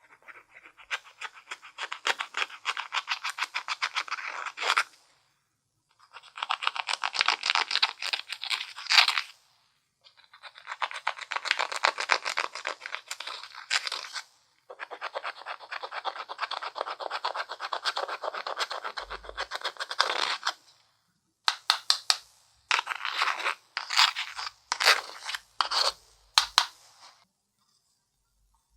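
Slime being mixed and worked by hand, giving a dense crackle of tiny sticky clicks and pops. It comes in four long stretches with short pauses between, then several shorter bursts near the end.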